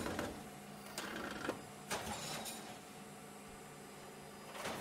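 Metal parts being handled during a turbocharger overhaul: a few sharp clicks and knocks, clustered about a second to two seconds in, over a steady low machinery hum.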